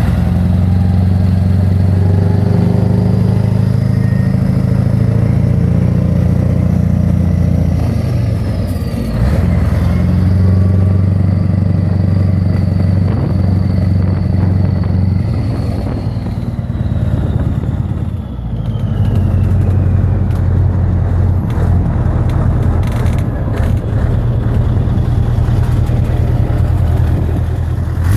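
Scania 143 truck's V8 diesel engine running, heard close to its welded exhaust pipe. A deep, steady note that eases off briefly about nine seconds in and again about eighteen seconds in.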